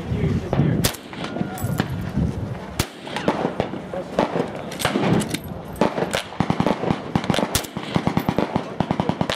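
Several .308 Winchester rifle shots from a Winchester SXR semi-automatic rifle, fired a couple of seconds apart as a magazine is emptied, with many fainter quick cracks of gunfire in between.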